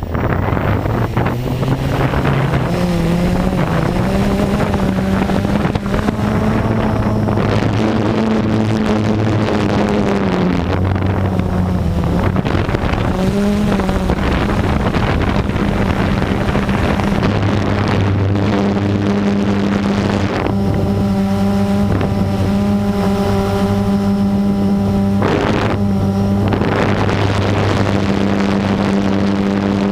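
Blade 350QX quadcopter's brushless motors and propellers droning in flight, the pitch gliding up and down with throttle in the first half and then holding steady. Wind noise on the microphone.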